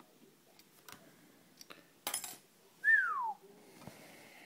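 Faint clicks of lock picks working an EVVA oval cylinder, then a short burst of metallic clicking about two seconds in. It is followed by one short whistle that falls in pitch, the loudest sound.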